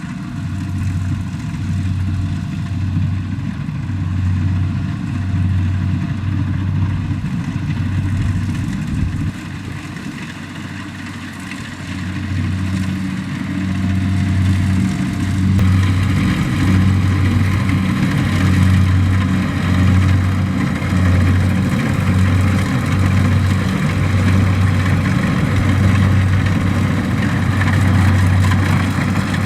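Kubota DC-70 combine harvester's diesel engine and machinery running steadily while harvesting rice, with a low, slow, regular throb. About halfway through it grows louder and the higher clatter of the machinery comes up.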